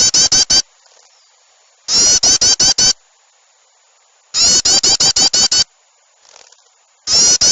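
Looped bird-lure recording of agitated small birds calling: loud bursts about every two and a half seconds, each a drawn-out high note followed by a rapid run of short, sharp notes, as in a noisy flock mixed with bulbul calls.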